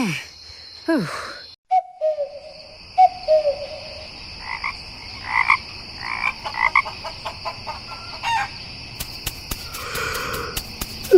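Animal chorus: repeated croaking calls over a steady high trill, with a few short falling notes near the start.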